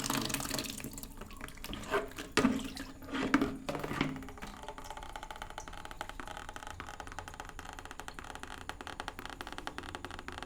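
Water running from a tap, shut off about a second in, followed by several loud knocks and squeaks from the tap over the next two seconds, then faint light ticks.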